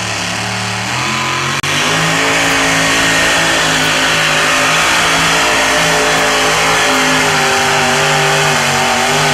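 Engine of a two-wheel-drive pulling truck at full throttle, hauling a weight-transfer sled. It steps up in pitch and gets louder in the first two seconds, then holds loud and steady.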